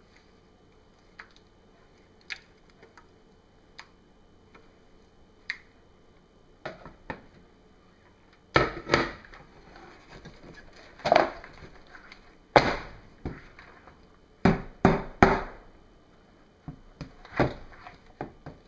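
Tapping to knock thick soap batter out of the pot into the mold: a few light clicks, then, from about eight seconds in, a run of loud sharp knocks, three of them in quick succession near the middle.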